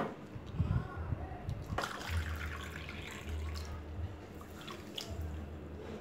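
Water poured from a bowl onto a heap of sugar in a non-stick wok, splashing and trickling from about two seconds in, as sugar syrup is started.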